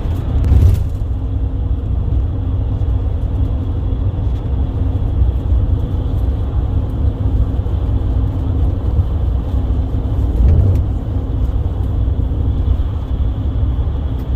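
Steady low engine and road rumble inside a moving tour bus, with a faint constant hum and a brief knock just after the start.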